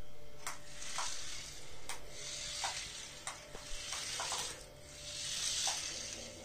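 Small electric motor and plastic gearbox of a toy RC off-road truck whirring as it drives across a floor mat. The whir swells and fades several times with throttle bursts, with a few light clicks.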